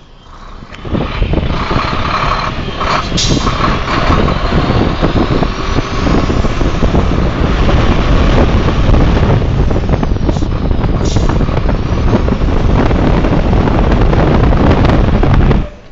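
Four-axle tipper truck driving along, heard with the microphone held outside the cab window: heavy wind rush on the microphone mixed with truck running and road noise. It starts about a second in and cuts off suddenly near the end.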